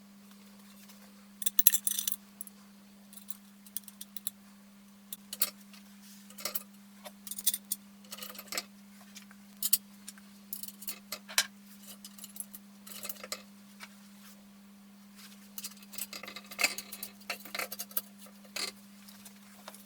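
Small metal parts and tools being handled on a workbench: irregular light metallic clinks and clatter, in short clusters, over a steady low hum.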